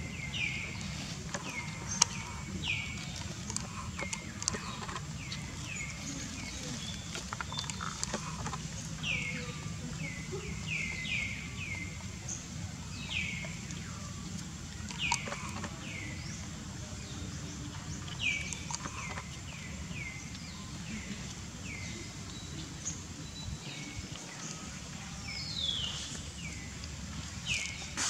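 Many short, high animal chirps, each falling in pitch, come irregularly over a steady low background hum, with a few sharp clicks, the loudest about two seconds in.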